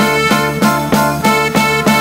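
Upbeat instrumental music with a steady, quick beat.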